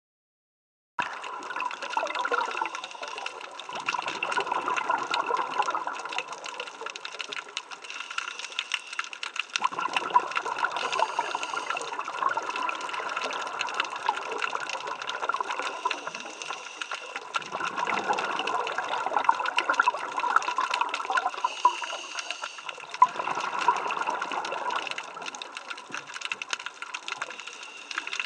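Underwater sound of a scuba diver breathing through a regulator, heard through the camera housing. Exhaled bubbles come in rushing, bubbling bursts about every six seconds over a constant hiss, starting about a second in.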